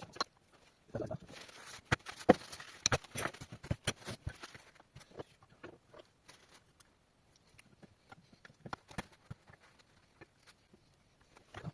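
Scattered clicks and knocks of metal parts and tools being handled during gearbox teardown, busiest in the first few seconds.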